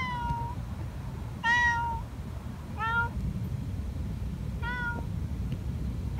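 Stray cat meowing over and over, a short call about every one and a half seconds.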